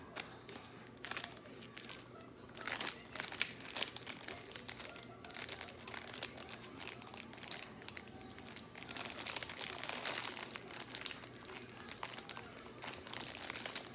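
Fast-food paper packaging being crumpled and crinkled by hand in irregular crackling bursts, busiest a few seconds in and again about two-thirds of the way through.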